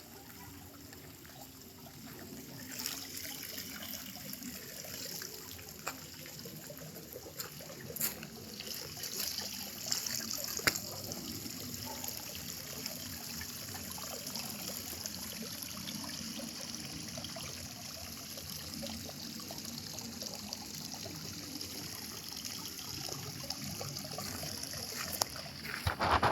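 Water trickling and splashing steadily from a small artificial-rock waterfall into an ornamental pond, with a few brief clicks, the loudest near the end.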